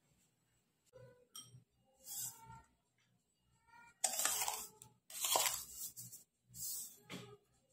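Kitchen handling noises: a series of short rustles and light clinks, the loudest about four seconds in.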